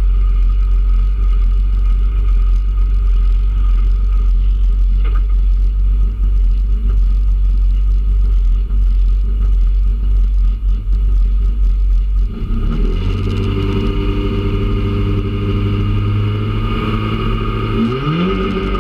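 Peugeot 106 Rallye's four-cylinder engine heard from inside the cabin, ticking over low for most of the time, then brought up to a steady held rev about two-thirds of the way through and rising quickly higher near the end: the car being revved on the hillclimb start line before launching.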